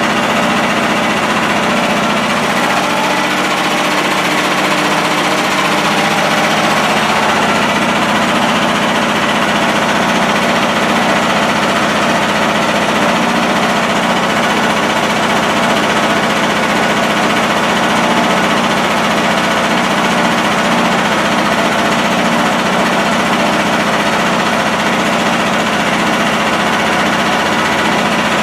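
Portable generator's engine running loud and steady at a constant speed.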